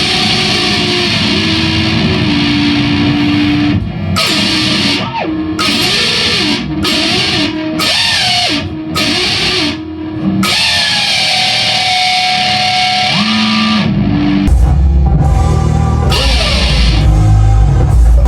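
Rock music led by electric guitar, broken by several short stop-start gaps in the middle; a heavy low end, bass and drums, comes in near the end.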